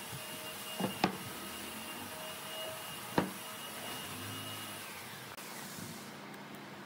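Two sharp wooden knocks about two seconds apart as heavy wood slab pieces are set down on a workbench, over a steady workshop machine hum. A faint high whine in the background winds down about five seconds in.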